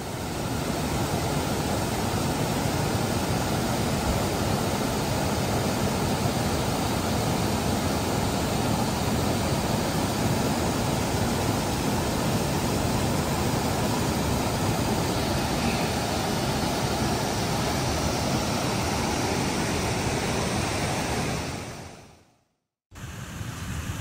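Steady rushing of water over the small ledge cascades of Whitaker Falls. It fades out near the end and is followed by a moment of silence.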